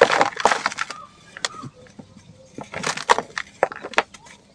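Dried sand-and-cement clumps crumbling, crunching and crackling: a loud burst at the start, scattered small crackles, then a second cluster of crunches about three seconds in.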